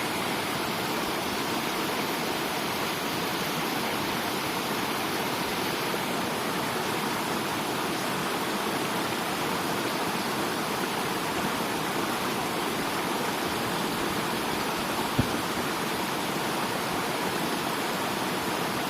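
Water rushing steadily in a continuous even hiss, with one short knock about fifteen seconds in.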